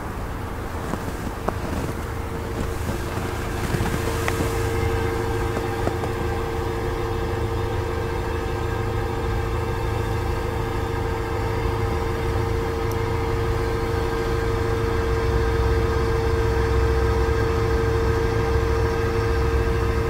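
A vehicle engine running steadily at idle: a constant low hum with a steady mid-pitched whine that grows slightly louder about four seconds in.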